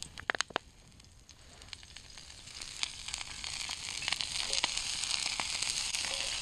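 Slices of cured French saucisson beginning to fry in a pan of oil that had solidified in the cold, the sizzle building steadily louder as the oil melts and the pan heats. A few sharp clinks come about half a second in.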